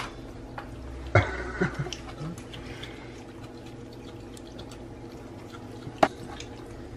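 Sparse light clicks and taps of a metal fork against a plastic salad tray as a capuchin monkey picks at lettuce, with a sharper click about a second in and another near the end. A faint steady hum runs underneath.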